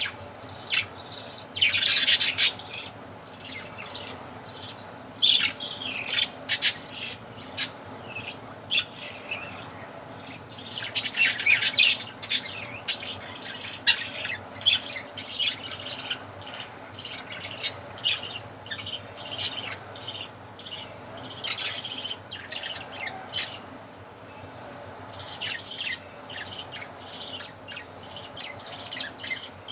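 Budgerigars chirping and chattering: a busy run of short, high chirps and squawks, with louder bursts of chatter about two seconds in and again around ten to twelve seconds in.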